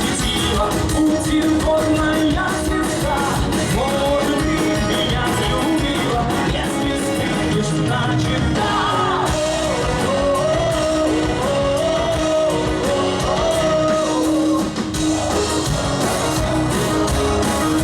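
Live band performing a rock song, a sung vocal melody carried over drums and instruments, in a large hall.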